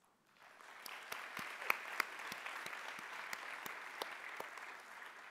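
Audience applauding, building up over the first second and then holding steady, with single sharp claps standing out.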